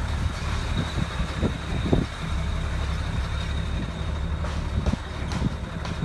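Diesel truck engine running steadily, with a faint high whine and a few knocks and rattles.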